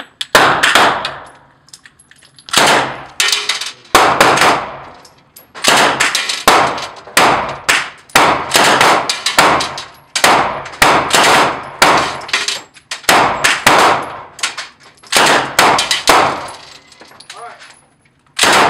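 Thompson submachine gun in .45 ACP firing on full auto in a long run of short bursts, a few shots each, one burst after another. The shots ring and echo off the hard walls of the indoor range.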